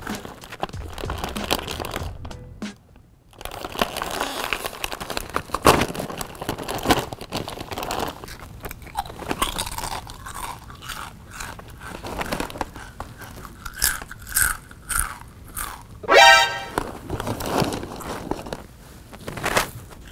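Loud crunching bites and chewing of a whole raw carrot, heard over background music. A short rising tone sounds about sixteen seconds in.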